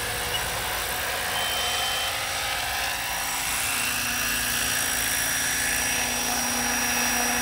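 Electric SAB Goblin 570 RC helicopter hovering low, its motor and rotor giving a steady whine of several tones over the hiss of the blades, with a lower hum joining about halfway through.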